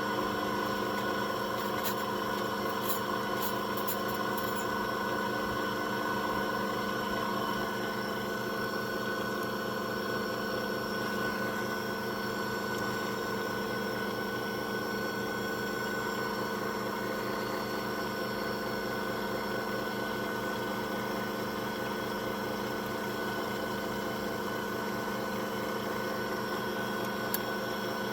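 Electric key-cutting machine running steadily, its motor humming with an even rapid pulse, and a few brief high ticks about two to four seconds in.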